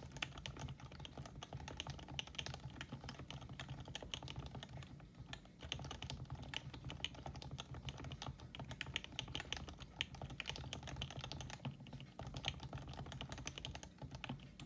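Continuous fast typing on a Happy Hacking Keyboard Professional 2, its contactless (Topre capacitive) switches lubricated with Krytox 105 oil: a dense, unbroken run of keystrokes.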